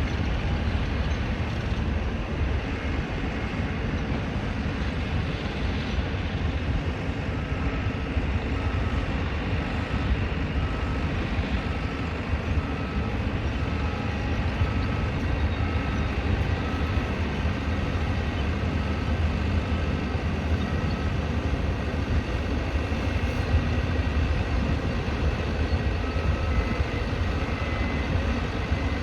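Steady low rumble of heavy vehicles and traffic around a building construction site. A faint, high electronic beep repeats about twice a second through the middle and again near the end.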